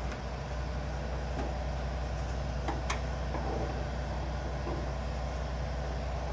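Hood gas strut being fitted to its mount under the raised hood of a Ford F-250 Super Duty: one sharp click about three seconds in, over a steady low hum.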